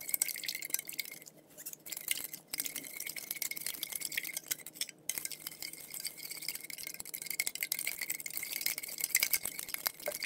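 Metal spoon stirring borax into warm water in a clear measuring cup: a rapid, steady clinking and scraping against the cup's sides as the borax clumps are dissolved.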